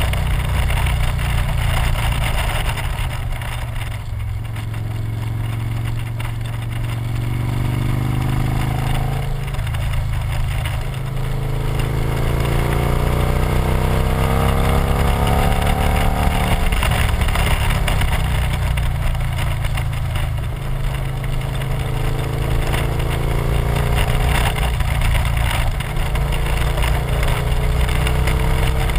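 Victory motorcycle's V-twin engine running at speed under a steady rush of wind over the microphone. Its note climbs a little past the middle as the bike accelerates, then drops back.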